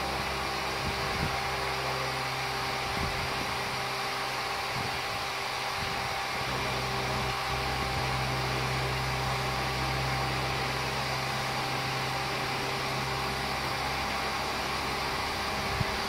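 Numatic George wet-and-dry vacuum cleaner running steadily, a constant suction rush with a steady whine over it, as its floor tool is worked over artificial grass.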